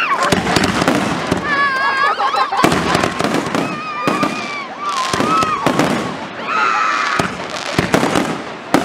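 Aerial firework shells bursting in quick succession, with bangs and crackle, during a dense display. People's voices call out over the bursts at several points.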